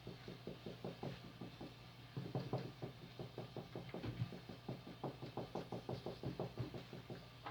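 A quick run of soft clicks and taps, several a second, fainter in places and then picking up again.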